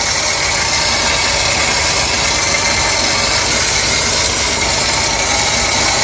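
High-pressure car washer with a motor-driven plunger pump running steadily, the gun held open and spraying shampoo foam through a foam-cannon bottle with an even hiss.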